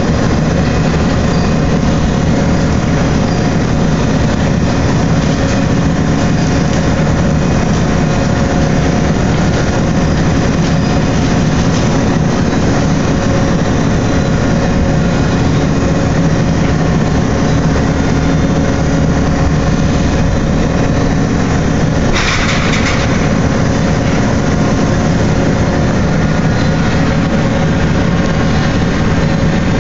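Large truck dumper running with a steady, heavy machinery drone as it tilts a loaded wood-chip trailer up on end, with a short hiss about 22 seconds in.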